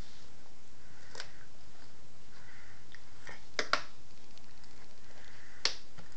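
Sharp plastic clicks and taps of a plastic baby spoon on a plastic high-chair tray: one tap about a second in, a loud double clack about three and a half seconds in as the spoon drops onto the tray, and another tap near the end.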